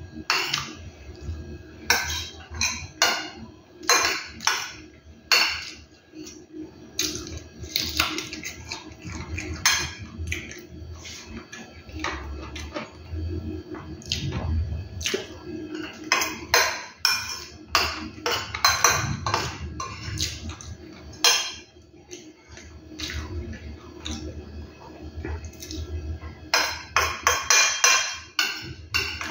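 Eating at the table: a metal spoon and fork clinking and scraping on a glass plate over and over, with chewing of fried chicken and rice.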